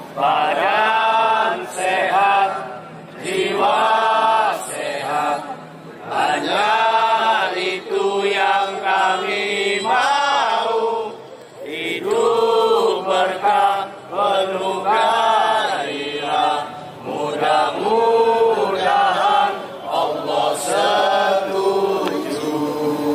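Slow chanted singing of a Javanese devotional verse, one drawn-out phrase after another with a wavering, ornamented pitch and brief breaks between phrases.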